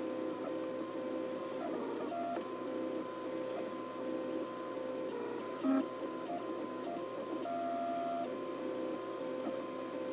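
MakerBot 3D printer running a dual-extruder print: its stepper motors whine in steady tones that jump from pitch to pitch as the print head makes short moves, with one brief louder blip about halfway through.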